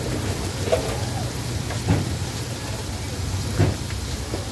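Steady rain hissing, with a few sharp clatters about one, two and three and a half seconds in.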